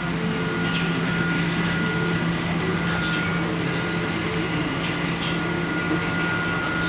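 Steady machine hum of workshop equipment, with a constant low tone and a thin, higher steady whine.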